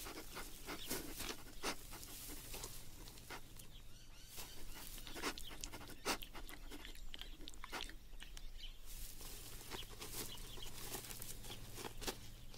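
Red kangaroos moving and sniffing at close range on dry ground: irregular soft crunches, clicks and snuffles, over a low steady hum.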